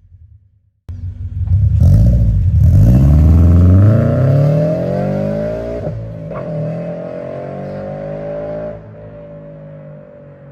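Toyota GR86's 2.4-litre flat-four engine accelerating hard after a brief silence, its note climbing steadily in pitch. After a short break about six seconds in, the note falls slowly and grows quieter.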